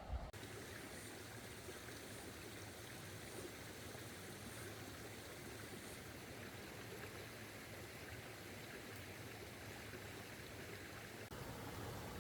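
Steady rushing of a forest stream's flowing water, starting abruptly just after the start.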